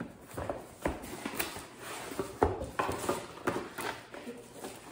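A product box being opened by hand and its packaging handled: irregular taps, knocks and rustles.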